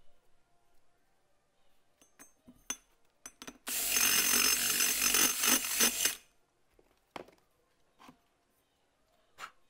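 A drill spins a 45-degree dressing stone on a pilot against an LS1 cylinder head's valve seat, grinding the seat, in one loud run of about two and a half seconds starting a little over three and a half seconds in. Light clicks and knocks of tool handling come before and after it.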